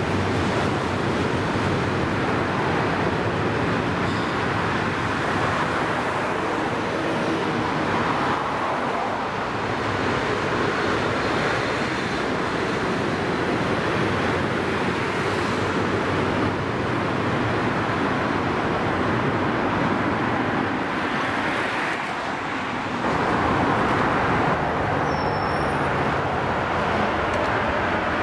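Freight train of coal wagons rolling past: a steady rumble and rush of wheels on the track, changing in character about 23 seconds in.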